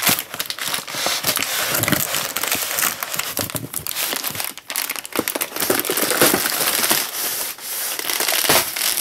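Clear inflatable air-column plastic wrap crinkling and crackling continuously as a bulky laser-printer toner cartridge inside it is handled and slid out of the wrap.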